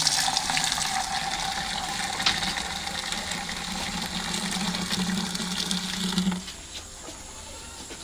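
Fresh milk pouring in a thick stream from an aluminium pail into an aluminium milk can, with a low hollow tone from the can that rises slightly; the pour stops abruptly about six seconds in.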